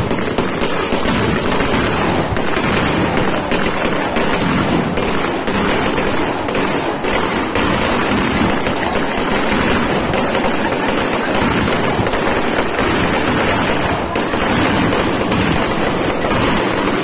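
Firecrackers going off on the ground in a long run: a dense, continuous crackle of rapid bangs without a break.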